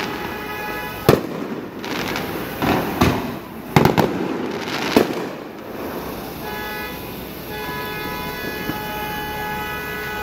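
Fireworks going off overhead: a run of sharp bangs and crackles, several close together, through the first five seconds. From about six and a half seconds in, a car horn is held in long steady blasts.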